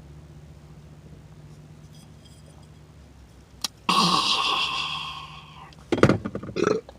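A long, loud burp about four seconds in, lasting nearly two seconds and fading out, after a drink of carbonated cream soda; a couple of short loud vocal sounds follow near the end.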